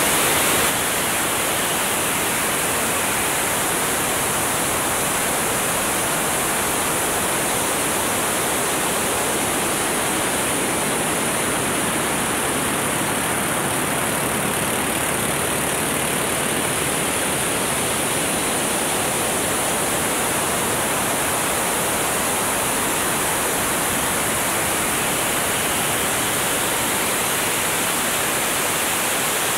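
Steady rushing of airflow over a camera mounted outside a propeller airplane in flight, an even roar of wind noise with no distinct engine note, slightly louder for the first half second.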